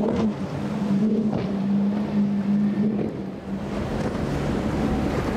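Outboard engines of a fast center-console boat running at high speed, a steady drone over the hiss of spray and wind on the microphone. About three and a half seconds in the drone changes to a lower pitch.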